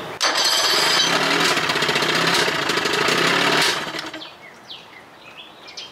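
Johnson 25 hp outboard engine, cowling off, in a test barrel: it fires up suddenly, runs fast for about three and a half seconds, then dies away.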